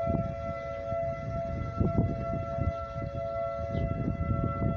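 Outdoor tornado warning siren sounding, holding a steady pitch, with gusts of wind rumbling unevenly on the microphone.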